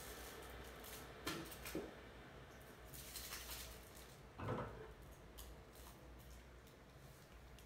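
Quiet handling noises at a table: a few faint taps and light crinkly clicks, and a short dull knock about four and a half seconds in, as small things and a pair of scissors are handled, over a low steady room hum.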